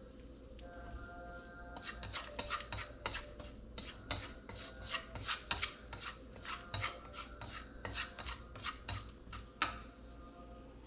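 Wooden chopsticks scraping and tapping against a nonstick wok while stirring sliced garlic in oil: an irregular run of short scrapes and light clicks.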